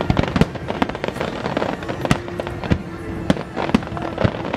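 Fireworks display: aerial shells bursting overhead in a quick, irregular series of sharp bangs with crackle between them.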